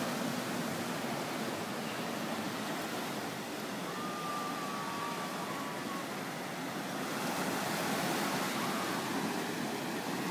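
Ocean surf breaking and washing up onto a sandy beach, a steady rushing noise that swells gently.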